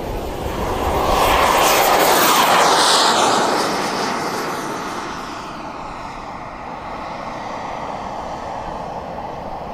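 Radio-controlled model jet's turbine engine at takeoff power, a rushing roar with a high whistle that grows louder as the jet rolls past and lifts off, then fades steadily as it climbs away.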